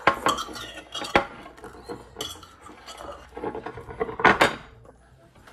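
Cutlery clinking and scraping against dishes as poutine is eaten. There are several sharp clinks and a louder clatter about four seconds in.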